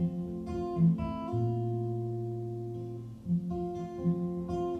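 Live acoustic guitar music between sung lines: strummed chords ringing out.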